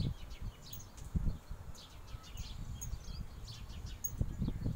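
Small birds chirping now and then in short, high calls, over a low rumble with dull thumps about a second in and again near the end.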